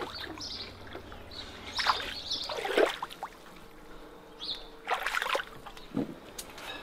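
Bare feet wading through shallow water over rocks, each step a short splash or swish, about five of them spaced a second or so apart.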